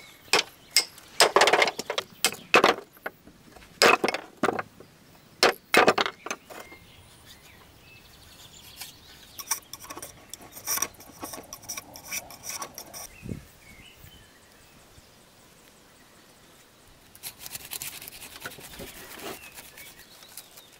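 Blade chopping and working bamboo: a quick run of sharp strikes for the first seven seconds or so, then softer scraping and cutting, with a rougher rustling stretch near the end.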